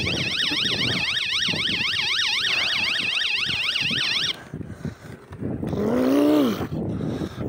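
Electronic bicycle horn on the handlebars sounding a fast warbling siren, about three rises and falls a second, which cuts off a little past four seconds. About six seconds in comes a short, loud voice-like call that rises and falls in pitch.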